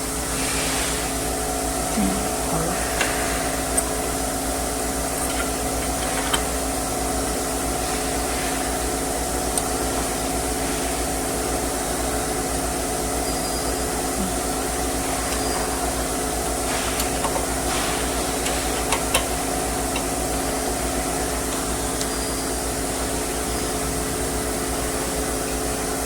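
Steady mechanical hum with several constant tones, with a few light clicks and taps scattered through it.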